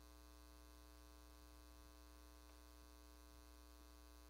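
Near silence with a steady low electrical mains hum.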